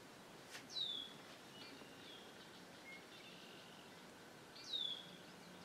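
A bird calling twice, each call a short whistle sliding down in pitch, about four seconds apart, over faint marsh ambience.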